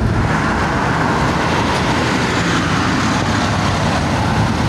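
Steady road traffic noise: an even rush of vehicles on a busy city street, with no distinct events.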